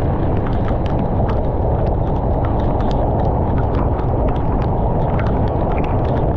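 Heavy typhoon rain on a moving car: a loud, steady low rush with many irregular sharp ticks of drops striking.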